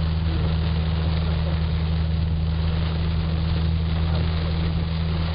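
Inside a taxi driving through a torrential downpour: the car's engine drones low and steady under an even hiss of heavy rain on the roof and windscreen.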